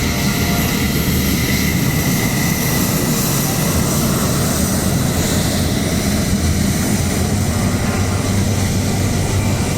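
Fighter jet engines running, a loud steady jet noise with a thin high whine over it.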